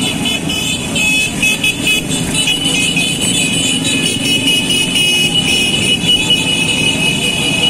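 Small motorcycles riding past one after another, their engines running together in a steady, loud mix. From about two seconds in, a steady high-pitched tone runs over the engine noise.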